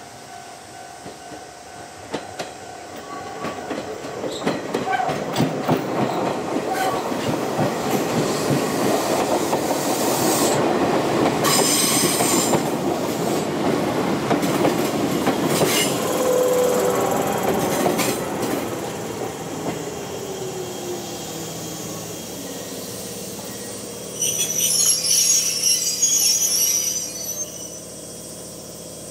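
An Izuhakone Railway Sunzu Line electric train approaching and passing close by, its wheels clacking over the rails and squealing; it grows louder over the first half and then fades with a falling tone. A short burst of high-pitched sound starts suddenly about four seconds before the end and stops about a second later.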